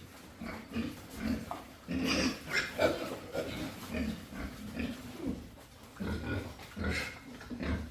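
Pigs grunting in irregular short sounds, with a few brief, sharper louder ones among them, about two seconds in and again near the end.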